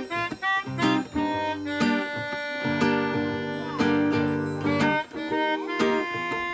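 Music: an instrumental passage of a song, acoustic guitar strumming chords in a steady rhythm.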